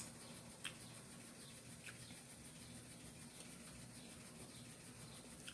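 Near silence: quiet room tone with a faint steady low hum and a few soft clicks in the first two seconds.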